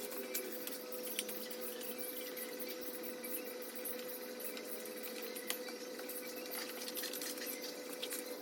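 Budgerigars twittering in rapid, short squeaky chirps and ticks over a steady hum.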